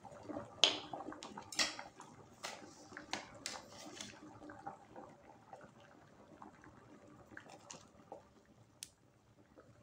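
Pot of cassava at a rolling boil: the water bubbling with irregular pops and crackles, louder in the first few seconds, and a single sharp click near the end.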